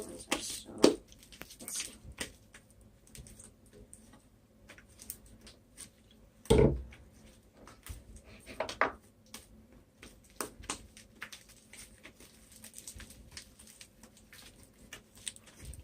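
Slime being mixed and handled by hand: scattered small clicks, with one louder thump about six and a half seconds in.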